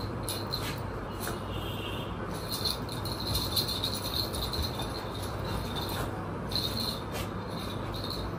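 A dog's metal chain collar jingling and rattling in short bursts as the dog rolls and jumps about, with a few sharp clinks, over a steady low hum.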